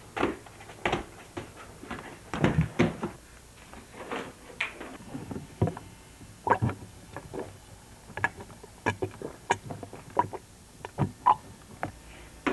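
A string of irregular knocks, clicks and bumps, loudest about two and a half seconds in.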